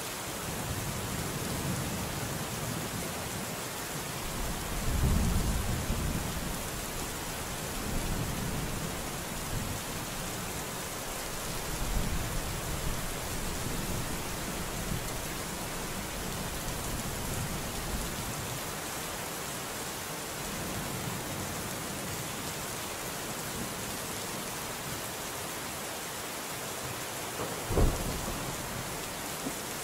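Steady rain falling, with low rolls of thunder swelling and fading, the strongest about five seconds in and again near twelve seconds. Near the end a short, sharp thump stands out as the loudest moment.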